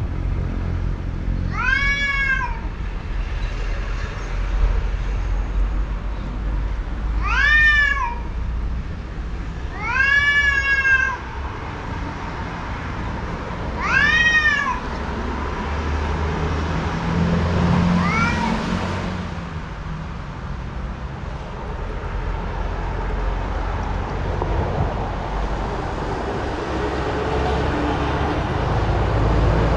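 Cat yowling, the warning call of a cat in a face-off with another cat: four long, drawn-out meows that rise and fall in pitch, a few seconds apart, and a fainter, shorter one after them.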